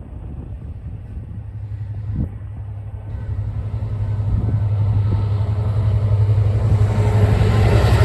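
Diesel train approaching: a steady low engine hum that grows louder throughout, joined toward the end by a rising rush of wheel and rail noise.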